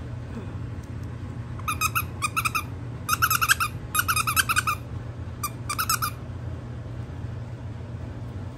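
Squeaky plush dog toy squeaking in about six quick bursts, each a rapid run of short squeaks at the same pitch, between about two and six seconds in.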